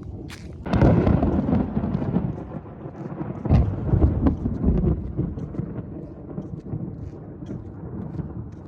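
Thunder: a sudden loud crack about a second in that rolls into a low rumble, swelling again around four seconds and slowly dying away.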